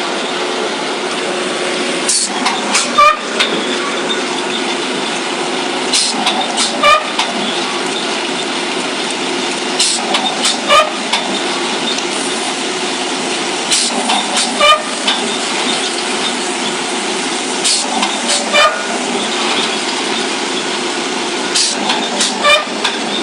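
Free-fall punching pile driver working: the rig's drive runs steadily while the hammer drops about every four seconds. Each drop is a short clatter of metal clanks ending in a heavy thud, six times over.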